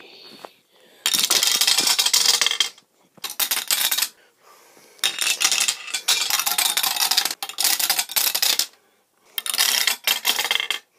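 A marble rolling and rattling down a long marble-run tube, in four stretches with short gaps between them.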